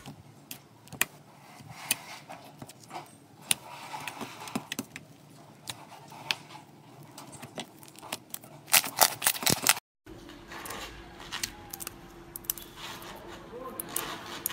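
Thick slime stretched and folded by hand, giving sticky, irregular clicks and pops, with a dense run of louder clicks about nine seconds in. After a brief gap, pink slime on a wire rack gives fainter clicks over a faint steady hum.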